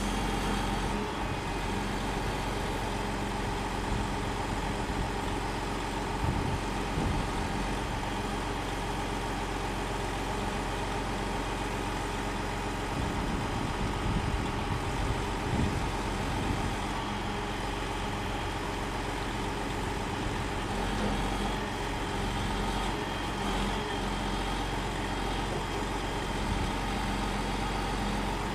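Log truck's diesel engine running steadily while it powers the knuckleboom log loader, with a few low thumps from the loader handling logs.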